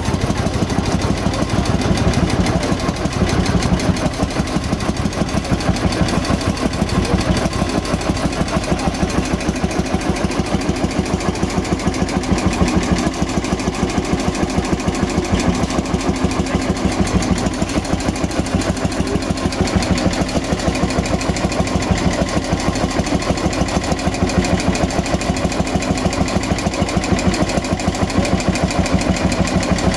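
Pampa tractor's hot-bulb engine idling with a steady, even beat of firing strokes.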